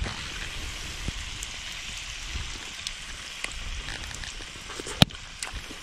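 Pieces of moose meat sizzling in hot fat in a cast iron skillet over a fire: a steady hiss. A few small clicks of a utensil against the pan, and one louder sharp knock about five seconds in.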